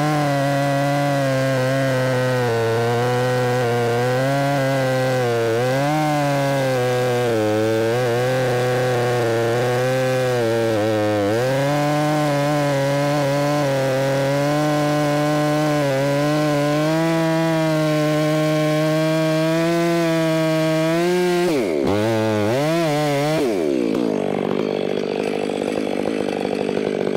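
Large two-stroke chainsaw with a 36-inch bar running under load in a long cut through a big log, bogging as the operator leans on it, its pitch dipping and recovering. About three quarters of the way in, the pitch swings sharply up and down several times as the cut finishes and the engine revs free.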